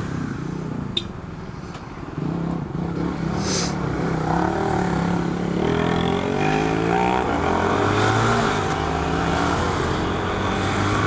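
Honda CB300 motorcycle's single-cylinder engine running under way in traffic. It is quieter for the first two seconds, then louder, and its pitch rises as it accelerates about halfway through.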